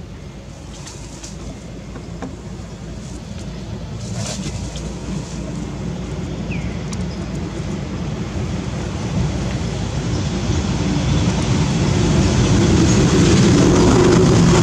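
Low rumble of an approaching vehicle, growing steadily louder, with a steady engine-like drone coming up near the end.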